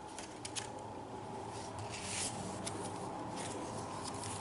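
Paper rustling and light handling of a handmade junk journal's pages and paper ephemera: short scratchy rustles, with one longer rustle about two seconds in.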